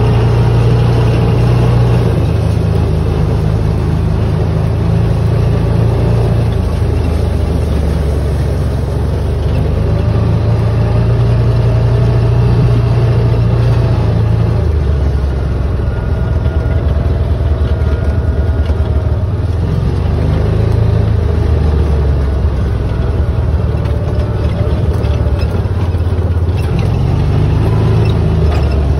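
Utility vehicle's engine running while driving slowly over gravel and grass, a steady low hum whose pitch drops and rises a few times as the speed changes.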